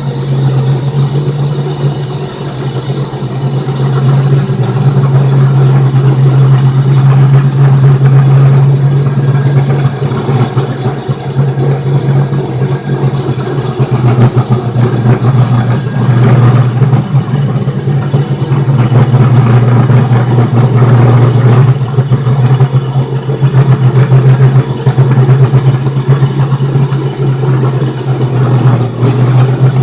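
Homemade lathe running, its motor giving a steady low hum with irregular rattling and clicking over it as the machine works.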